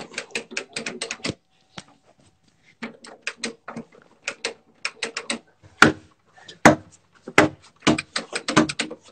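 Rapid knocking and banging on a door, in quick runs of several knocks a second. A few heavier blows land about six to seven and a half seconds in.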